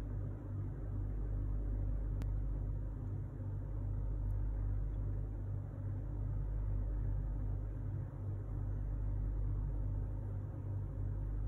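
A steady low hum with a faint click about two seconds in.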